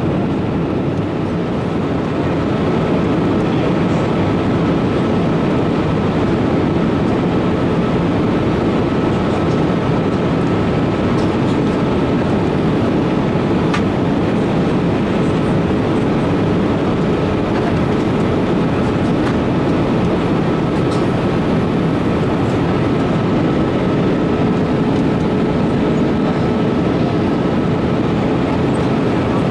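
Steady cabin noise inside a Boeing 787 airliner in flight: a constant rumble of engines and rushing air, with a faint steady whine above it.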